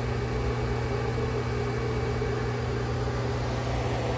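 600-watt microwave oven running at full power: a steady hum with a strong low tone over its fan noise.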